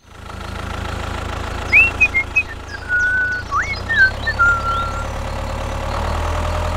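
Tractor engine running steadily at a low drone. From about two seconds in to five seconds, high whistling calls slide up and down over it.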